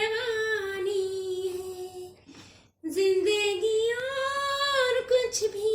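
A high female voice singing solo and unaccompanied, in long held notes that bend and waver. There is a short pause for breath a little over two seconds in.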